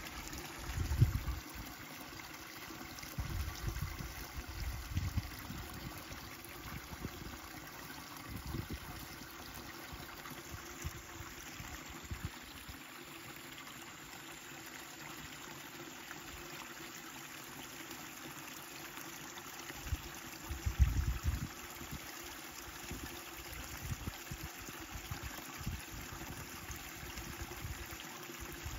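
Steady rushing noise of flowing water, with a few short low thuds about a second in, a few seconds in, and again near 21 seconds.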